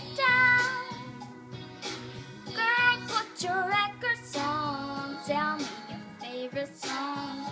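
A girl singing a pop song over instrumental backing, sliding and holding notes in several short phrases with small gaps between them.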